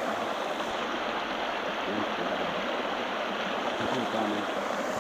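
A shallow rocky creek running over a gravel riffle, a steady even rush of water.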